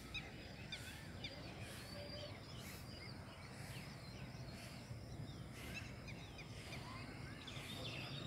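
Many small birds chirping and whistling in quick, sliding high notes, over a steady low rumble of outdoor background noise.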